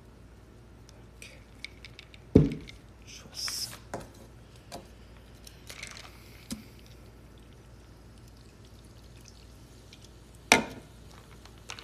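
Glassware handled on a table: a glass mug set down with a thump about two seconds in, light taps and rustles, then near the end a drink poured over ice into the glass mug with a sharp clink.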